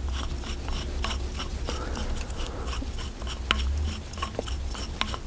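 Hands unscrewing a threaded fitting from the end of an FX Wildcat air rifle's depressurised air cylinder: faint metal rubbing with scattered light ticks and a couple of sharper clicks, about three and a half and five seconds in.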